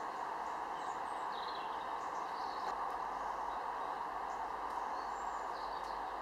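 Steady distant highway traffic noise, with short high bird chirps over it now and then.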